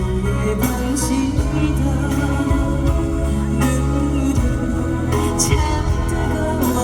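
Live concert music from the stage band: an instrumental passage of sustained keyboard-like tones over a steady, heavy bass, with a few short bright percussion hits.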